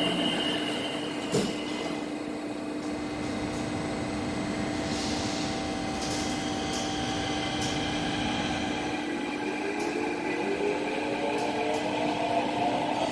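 Driverless metro train's doors sliding shut, with a short thump about a second and a half in, then the train pulling out. It runs with a steady hum, and its electric traction motors give a whine that rises in pitch over the last few seconds as it speeds up.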